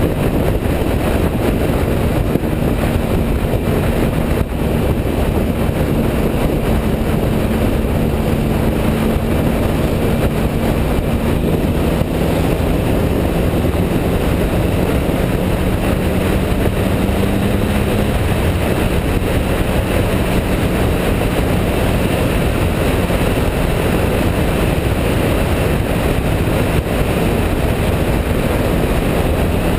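2011 Triumph Speed Triple's 1050 cc inline-three engine running at a steady cruise, with wind rushing over the microphone. The engine note edges up in pitch around the middle.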